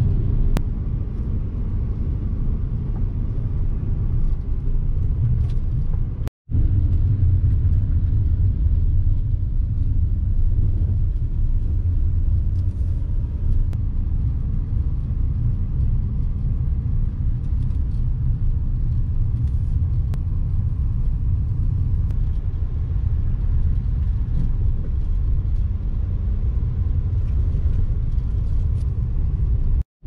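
Steady low rumble of a car's tyre and engine noise heard from inside the cabin while driving, cutting out completely for a moment about six seconds in.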